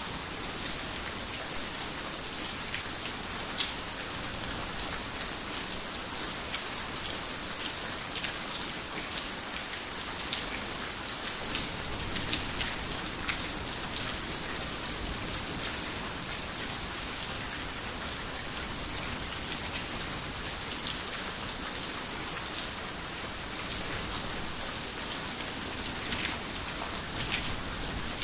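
Heavy rain falling steadily on a garden house, a dense even hiss with many sharp individual drop taps.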